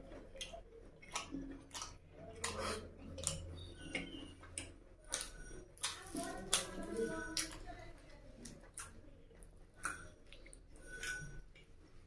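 Close-miked eating sounds: wet chewing and mouth smacks in many short sharp clicks, with a puri being torn and mashed into egg curry by hand.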